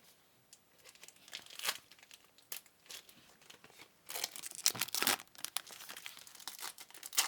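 Trading card pack wrappers crinkling and tearing as packs are torn open and handled, the crackling getting busier and louder about halfway through.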